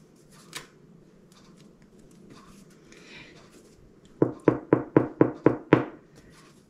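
Seven quick, even knocks of fingers on the hard crust of a freshly baked sourdough loaf, about four a second. This is the knock test for whether the bread is baked through.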